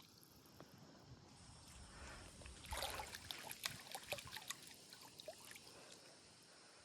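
Faint water trickling, with small scattered ticks and a brief louder rush about three seconds in.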